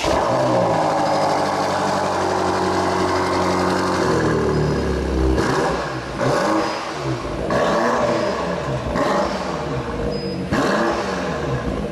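2018 BMW M5 (F90) 4.4-litre twin-turbocharged V8 running through its M sport exhaust while parked. It holds a steady note for about four seconds, then is revved several times in a row, the pitch rising and falling with each blip.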